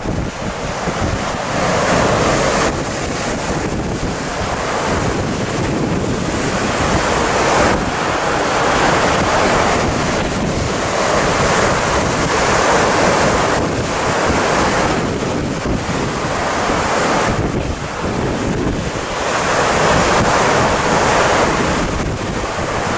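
Rough sea surf, waves breaking and washing in surges every few seconds, with wind buffeting the microphone.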